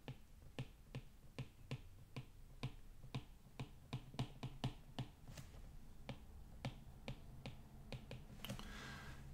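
Faint, irregular clicks and taps of a stylus on a tablet screen while words are handwritten, about three or four a second.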